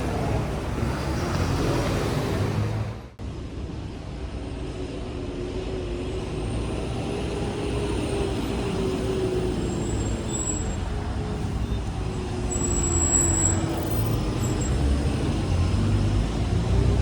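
Road-vehicle traffic noise: a low engine rumble with a wavering drone, growing louder toward the end. The sound cuts off abruptly about three seconds in and picks up again with similar running-engine noise.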